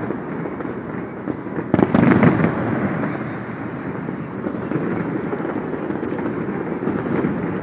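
Distant fireworks display: a continuous spatter of bangs and crackle, with a louder cluster of bursts about two seconds in.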